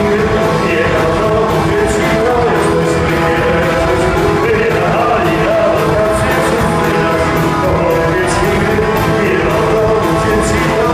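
Live rock band playing at full volume with a lead vocal, drums and cymbals, heard as a loud, dense mix from far back in a large concert hall.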